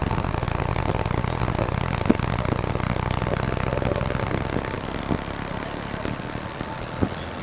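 Laser machine running with a steady low hum that eases off about four and a half seconds in, with a few sharp clicks as the beam works on the water-covered coin.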